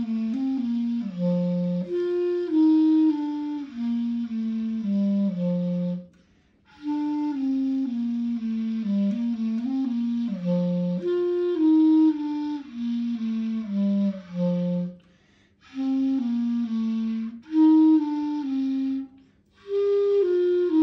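Solo clarinet playing a slow melody one note at a time, in phrases with brief pauses about six, fifteen and nineteen seconds in.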